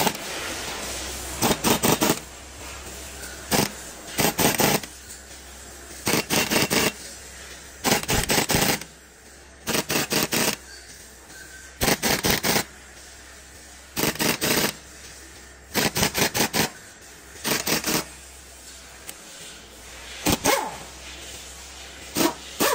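Pneumatic impact wrench hammering in about a dozen short bursts, each under a second and roughly two seconds apart, as it drives the nut of a cylinder-liner puller on a Komatsu SA6D125 diesel block.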